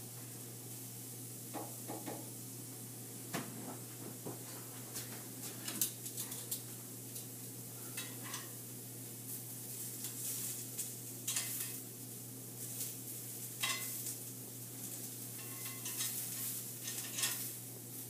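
Kitchen utensils clinking and scraping against a pan and plate as cooked asparagus is lifted and plated. The light clicks and clatters come irregularly, with a steady low hum underneath.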